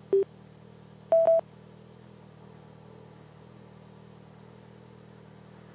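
Sena 10C Pro Bluetooth helmet headset beeping as an intercom connection is attempted: one short low beep, then a higher double beep about a second in, over a faint steady hum.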